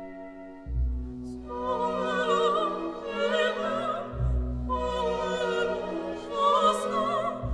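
Operatic singing with wide vibrato over orchestral accompaniment, with deep bass notes entering about a second in and again past the middle.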